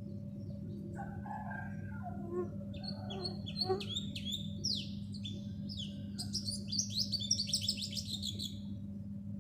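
Small songbird chirping: high notes with quick downward sweeps that speed up into a rapid run of chirps about six seconds in. Lower, softer calls come in about a second in, and a steady low hum runs underneath.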